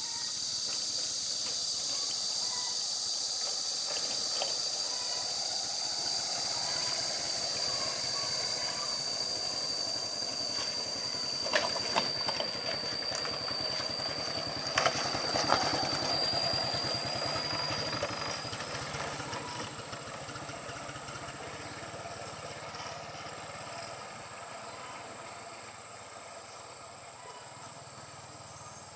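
Insects droning in a steady high-pitched whine with a hiss above it, dying away about two-thirds of the way through. A few sharp clicks come around the middle.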